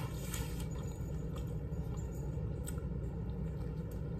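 Someone chewing a mouthful of chicken sandwich, with faint soft mouth clicks now and then, over a steady low background hum.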